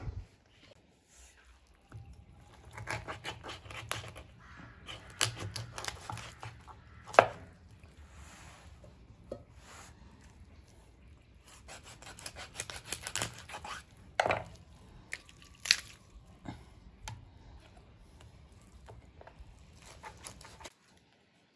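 A kitchen knife cutting up a whole raw chicken on a wooden cutting board. Irregular knocks of the blade on the board mix with cutting and tearing through skin and joints, starting about two seconds in.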